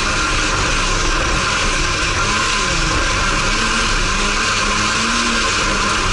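Race car engine heard from inside the cockpit, running hard with its pitch rising and falling as the driver works the throttle and gears, over a steady hiss of tyres on the dirt track.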